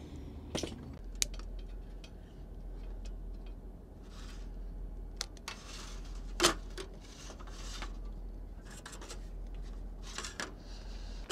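Small clicks, knocks and metal clinks of a red hurricane lantern and a long lighter being handled on a slatted aluminium table, with a few short rustles; the loudest is a sharp clink about six and a half seconds in. A faint steady low hum runs underneath.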